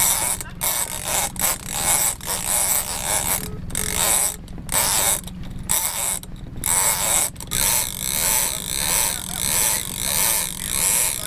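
Lever-drag big-game fishing reel (Shimano Tiagra 30W) working under the load of a hooked bluefin tuna: irregular mechanical clicking and creaking, then from about seven seconds in a steady rhythm of about one and a half strokes a second as the handle is cranked.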